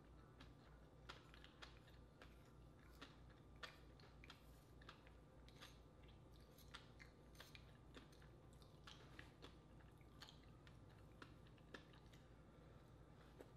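Faint eating sounds: a small wooden spoon clicking and scraping against a baked oyster's shell, with close-up chewing, as irregular soft clicks over a low steady hum.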